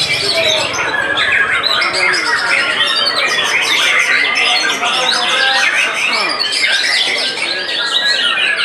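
Many caged white-rumped shamas (murai batu) singing at once against each other: a dense, unbroken tangle of loud whistles, fast sweeping notes and harsh chattering calls.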